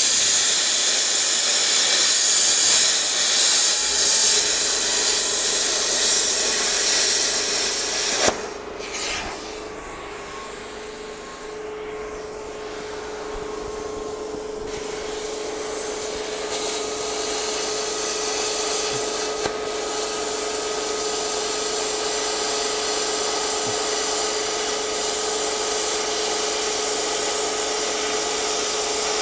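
Plasma cutter torch cutting through the steel shock mount on a truck's rear axle housing: a loud, steady hiss of the cutting arc and air. About eight seconds in the hiss breaks with a click and comes back quieter, and a steady hum joins soon after as the level slowly climbs again.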